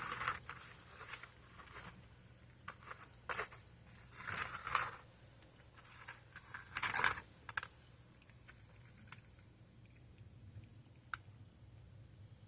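A cat eating dry food, with irregular crunching and crinkling in short bursts.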